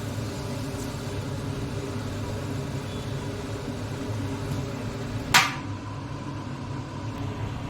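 Steady mechanical hum from a motor or fan, with one brief loud hiss about five seconds in.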